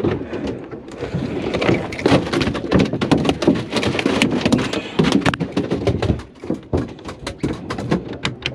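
Knocks and clatter of a fibreglass boat's deck fish-box hatch being lifted open and handled as a flounder is laid in on the ice and the lid is pushed shut, with many sharp clicks and bumps, busiest in the first six seconds.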